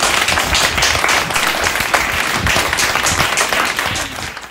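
Applause: many hands clapping together in a dense, steady clatter that tapers off near the end and stops abruptly.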